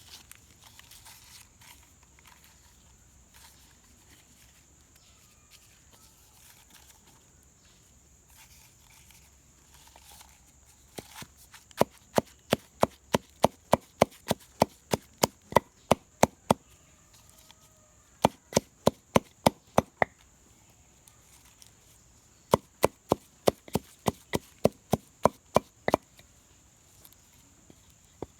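Chopping on a wooden surface: sharp strokes at about three or four a second, in runs of several seconds with short pauses, starting about twelve seconds in. A steady high insect drone runs underneath.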